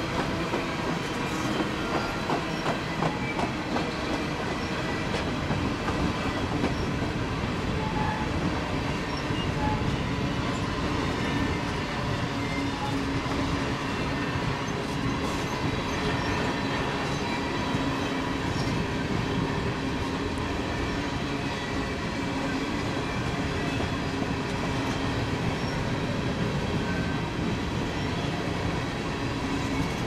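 Empty coal hopper cars of a freight train rolling past, a steady rumble of steel wheels on rail, with the wheels clicking over rail joints, most clearly in the first few seconds.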